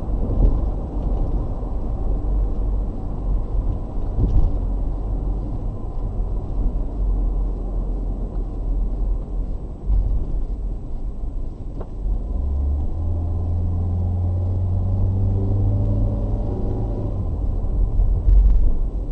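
Road and engine noise of a moving car, picked up by a dashcam inside the cabin: a steady low rumble, joined about two-thirds of the way in by a steady low hum.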